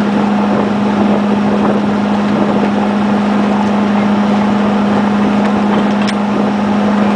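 Boat engine running with a steady, even low drone, over a constant noise of wind and water.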